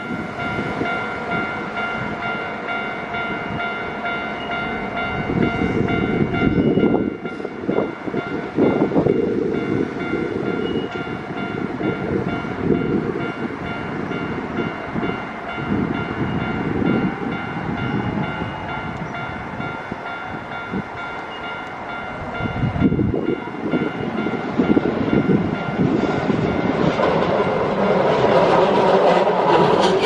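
Japanese level-crossing warning bell ringing steadily, its repeating electronic chime over a low uneven rumble. In the last few seconds the running noise of an approaching Keio 7000-series electric train builds up and grows loud as it reaches the crossing.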